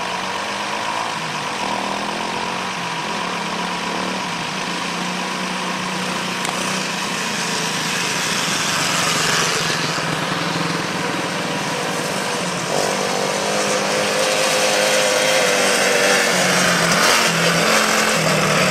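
Small quad bike engine running under load as it is ridden, its pitch rising and easing slightly in the second half.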